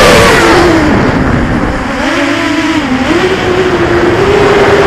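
Eachine Tyro 129 FPV racing quadcopter's motors and propellers whining over a rush of wind noise. The pitch drops as the throttle is eased off about half a second in, then climbs back up in steps over the last couple of seconds.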